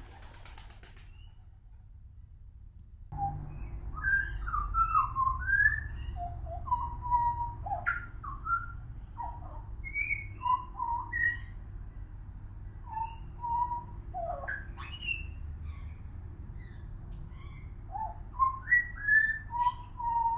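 Juvenile pied butcherbird singing: a rambling run of short whistled notes that rise and fall, starting about three seconds in, over a steady low hum.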